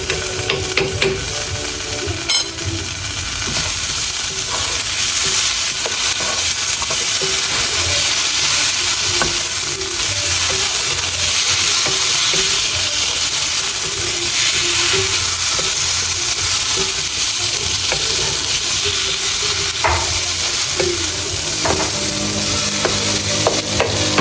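Food sizzling steadily in a hot frying pan, a little louder after the first few seconds, with a few short knocks of a utensil against the pan. Soft music plays underneath.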